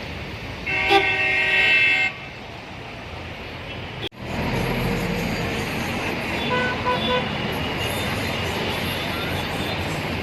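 Road traffic with a car horn held for about a second and a half near the start; after a brief cut in the sound, steady traffic noise continues with a few short horn beeps.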